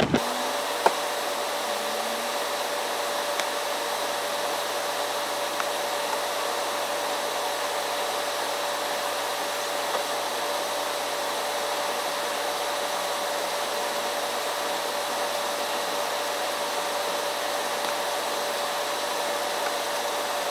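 A fan or blower running steadily: an even whoosh with a constant mid-pitched whine, and a single click about a second in.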